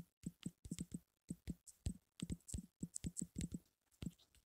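Faint key-press clicks from typing on a smartphone's on-screen keyboard: a rapid, uneven run of about twenty short clicks, one per letter.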